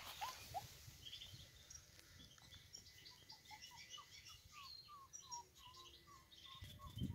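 Faint birdsong: a steady run of short chirping notes, about three a second, with higher twittering from other small birds over it.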